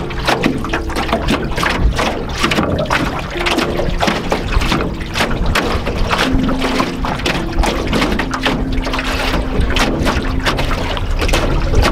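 Small lake waves slapping and splashing against the hull of an aluminium canoe in quick, irregular strokes, over a steady low rumble of wind on the microphone.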